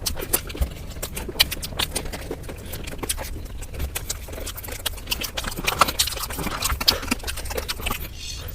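Close-miked crunching and chewing of crispy fried chicken, sped up four times, so the bites and crackles run together as a fast, dense clatter of sharp clicks.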